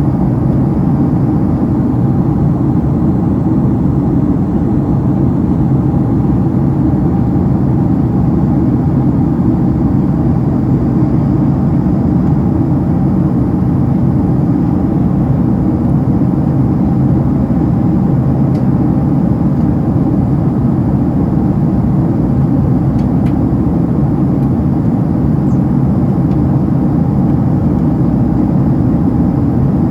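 Steady, loud cabin noise inside a Boeing 767-300ER with its jet engines running under power: a deep even rumble of engines and rushing air with a faint steady hum above it.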